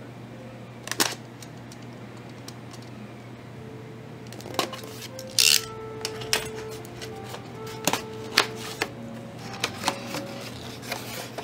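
Cardboard box being slit and opened by hand: scattered clicks, knocks and scrapes of a box cutter on packing tape and cardboard, with a short tearing rasp about halfway through as the tape gives. Soft background music with held notes comes in a few seconds in.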